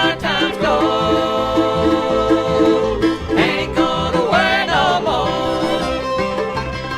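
Bluegrass band playing, with banjo picking over guitar and bass and a sliding lead melody line on top.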